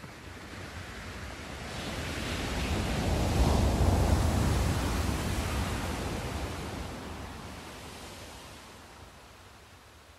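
A single swell of rushing noise, strongest in the low end, that builds to a peak about four seconds in and then slowly dies away.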